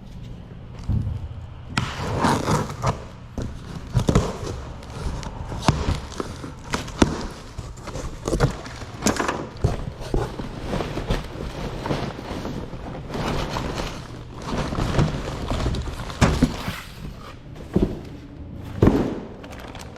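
Irregular thuds, knocks and rustling from handling a new hydraulic brake booster, over a low steady hum.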